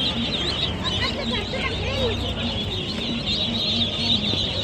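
Many caged poultry calling at once, a dense chatter of overlapping high chirps and peeps with clucking, over a murmur of voices.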